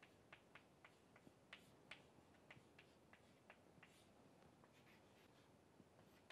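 Chalk writing on a chalkboard: faint, irregular taps and clicks of the chalk against the board, about three a second.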